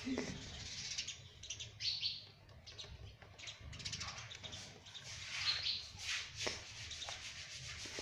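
Indian ringneck parakeet making short, irregular soft chirps, mixed with scratchy rustling close to the microphone.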